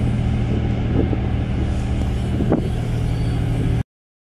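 Ferry's engines running with a steady low drone and hum, heard on the open deck; the sound stops suddenly near the end.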